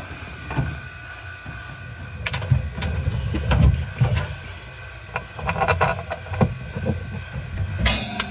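Scattered clicks and knocks from handling refrigerator parts by hand, over a low steady hum.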